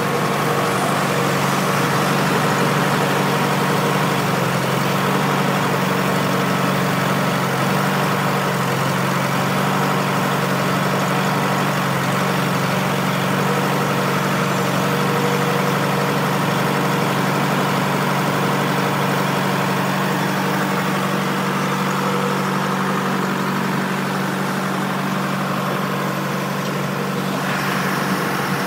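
1988 Trackmobile 95TM railcar mover's Detroit Diesel engine idling steadily.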